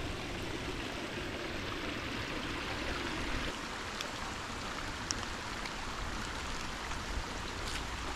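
Small forest creek running over rocks: a steady rush of water.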